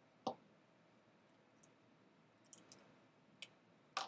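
Faint clicks and light taps of hands working on an opened MacBook's display assembly and its cable connectors, with a sharper click about a quarter-second in, a few fainter ticks, and another sharp click near the end.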